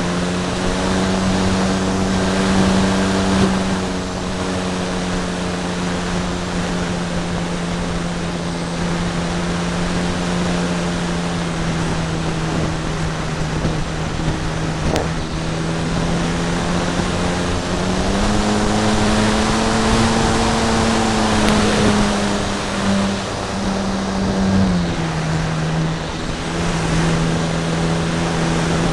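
Electric brushless motor (Turnigy 50-55) spinning a 15x10 APC propeller on a radio-control P-51 Mustang in flight, heard from a camera on the plane: a steady propeller drone with wind rushing over the microphone. The pitch rises about two-thirds of the way through as the throttle goes up, then steps back down near the end.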